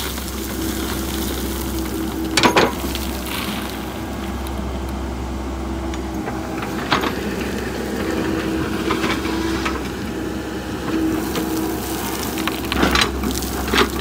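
Mini excavator's engine running steadily with a hum, while its bucket dumps loose soil that pours and crumbles onto the backfill pile. A few sharp clanks from the bucket and linkage.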